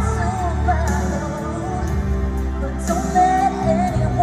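Live pop song: a female singer holding long notes with vibrato over a backing track with steady bass, heard through a concert sound system.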